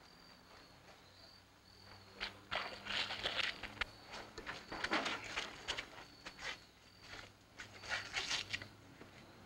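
Crickets chirping in short repeated pulses, with irregular shuffling footsteps and clothing rustle as several people walk and climb into a car. A faint low hum runs underneath.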